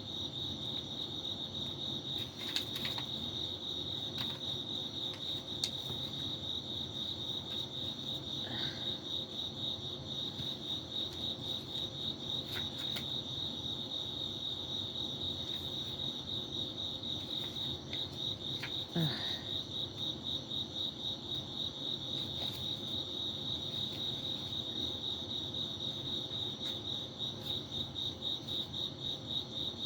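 Crickets chirping: a steady, high-pitched pulsing trill with no break, with a few soft clicks over it.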